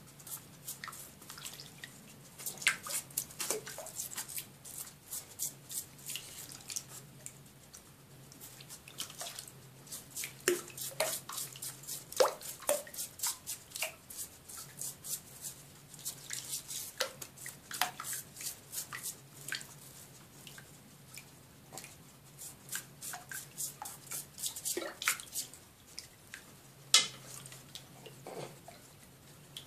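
Water splashing and dripping in a shallow tub as pet hedgehogs are bathed by hand: irregular small splashes and plinking drips throughout.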